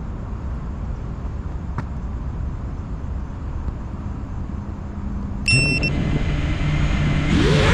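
Steady low outdoor rumble with a few faint ticks. About five and a half seconds in, a short high beep sounds and an FPV quadcopter's motors start spinning with a steady low hum. Near the end they throttle up into a louder whine that rises in pitch.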